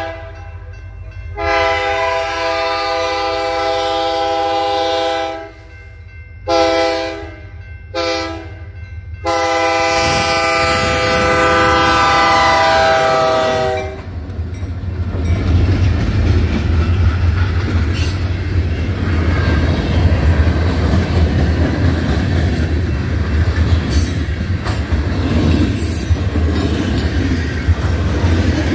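EMD SD40-2 locomotive's multi-tone air horn sounding the grade-crossing signal: a long blast, two short ones, then a final long blast that drops in pitch as the engine reaches the crossing. Then the deep diesel rumble of the two locomotives going by, followed by freight cars rolling past with wheels clicking over rail joints.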